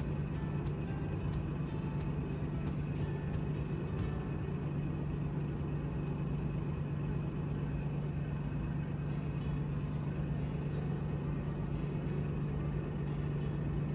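A steady low hum that holds one pitch, unchanged throughout.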